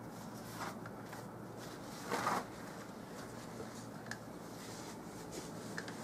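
A paintbrush working oil paint: one brief scratchy rustle about two seconds in and a few soft ticks, over a quiet steady hum.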